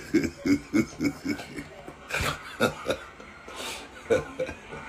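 A man laughing hard in short breathy pulses, about four a second at first, then breaking into scattered bursts of laughter.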